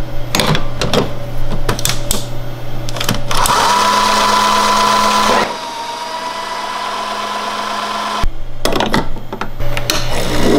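Breville espresso machine's built-in burr grinder grinding coffee beans into the portafilter, a steady whirring with a whine that starts a few seconds in and stops a couple of seconds before the end. Before and after it come clicks and knocks of the portafilter and machine buttons.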